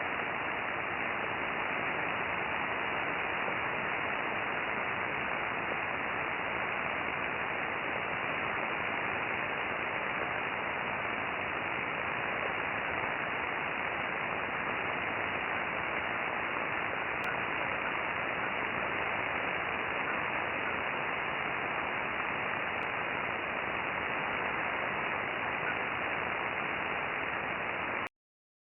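Radio receiver static: a steady hiss with little above the voice range, heard through a receiver tuned to 13.560 in search of an unidentified signal. The hiss cuts off suddenly near the end.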